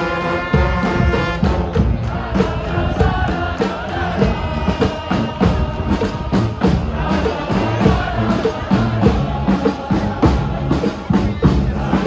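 Community brass street band playing live: horns sounding over a steady drum beat.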